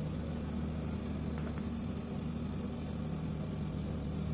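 LG split AC outdoor unit running with a steady low hum from its old compressor, which is noisy, while it is charged with R22 refrigerant on the suction side.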